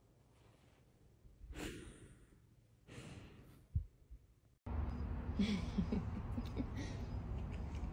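Two soft, long sighing breaths and a short knock, then a steady low rumble starts suddenly, with a few faint short squeaks and clicks over it.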